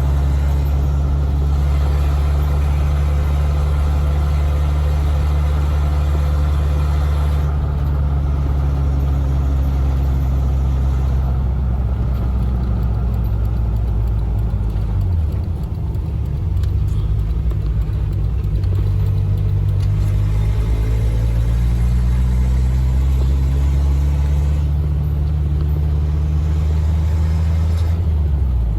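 Freshly rebuilt Toyota 22RE 2.4-litre four-cylinder engine in a first-generation 4Runner, running steadily under way on the road. Its pitch dips briefly about halfway through, then climbs again.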